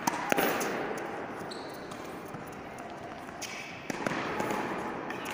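Tennis ball struck by a racket and bouncing on a hard court during a rally: two sharp pops close together near the start and another just before four seconds in, over a steady background hum.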